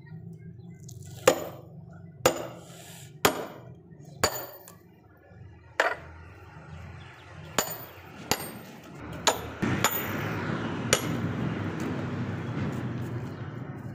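A hammer striking a steel wedge driven into a log to split firewood: about ten sharp metal-on-metal blows with a short clinking ring, roughly one a second and a little quicker later. From about ten seconds in a steady rushing noise sits under the last blow.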